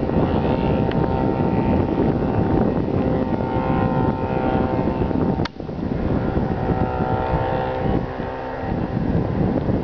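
Homebuilt light aircraft's propeller engine droning steadily as it flies past, under heavy wind rumble on the microphone. The sound cuts out for an instant about halfway through.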